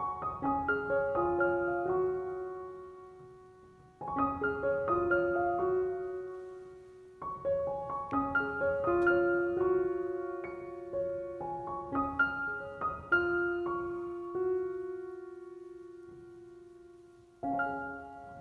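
Soft, slow solo piano music: a phrase of a few notes about every four seconds, each left to ring and fade.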